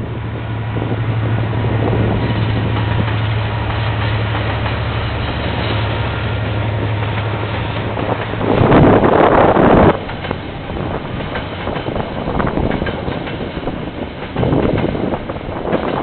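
KiwiRail diesel freight train passing. A steady low engine drone runs over a rumble for the first eight or so seconds, then stops as a loud rushing noise swells for about a second and a half. Rail wagons rumble past with an uneven, rising and falling noise after that.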